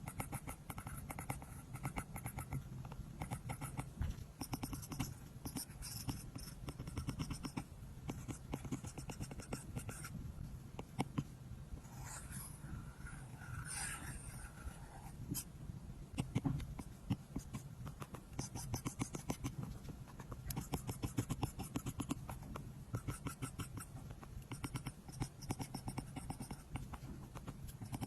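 Apple Pencil tip tapping and stroking fast on an iPad's glass screen while coloring, a dense run of light ticks, with a scratchier stretch near the middle.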